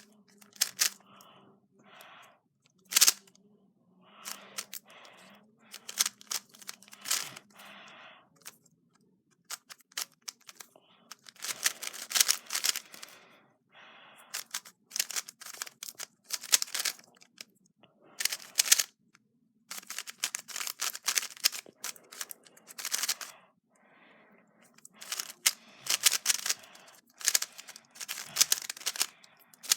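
A WRM Maglev 3x3 speedcube being turned fast during a solve: layer turns clicking and clacking in quick bursts, with short pauses between them. The bursts get denser and louder after about ten seconds.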